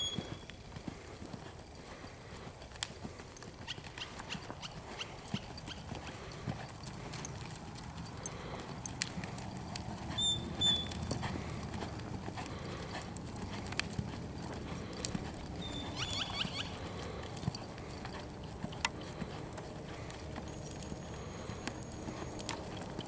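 American Quarter Horse mare's hooves striking soft arena dirt as she lopes under saddle, a run of muffled hoof falls. A few short high squeaks are heard along the way.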